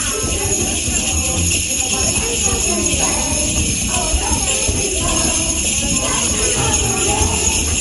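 Protsman sleigh bells jingling steadily, many small bells ringing together in a continuous bright shimmer.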